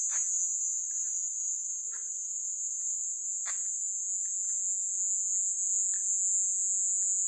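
Night-time chorus of crickets: a steady high-pitched trill throughout, with a few brief faint clicks over it.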